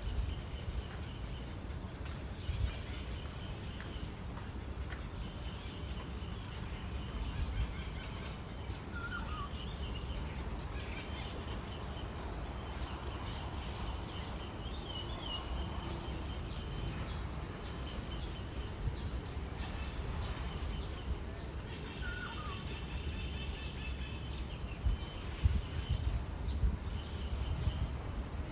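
Cicadas droning in a steady, high-pitched, continuous buzz. Scattered faint bird chirps and trills sound under it, with two short falling calls about nine seconds in and again near twenty-two seconds.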